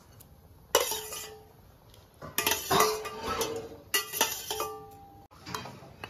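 Metal utensils clanking against a metal cooking pot: a sharp knock about a second in, a cluster of knocks and clinks around the middle and more near four seconds, some leaving a brief metallic ring.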